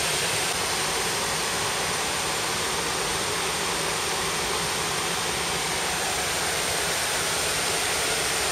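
Steady rushing of flowing water, an even noise that holds the same level throughout.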